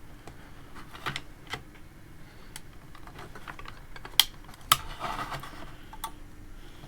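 Irregular light clicks and taps of small parts and tools being handled on a workbench, with two sharper clacks about four seconds in, then a brief rustle.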